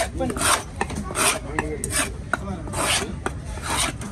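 A knife scraping in quick repeated rasping strokes, about two a second, with a few sharp clicks between them.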